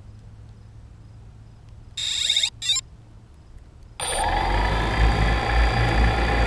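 A 3DR Solo quadcopter on the ground: about two seconds in it gives two short electronic beeps. About four seconds in its four electric motors spin up with a brief rising whine and then run steadily.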